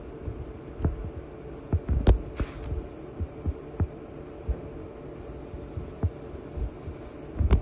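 Steady low hum of aquarium equipment with irregular low thumps and sharp clicks scattered through, the loudest about two seconds in, and a short hiss soon after.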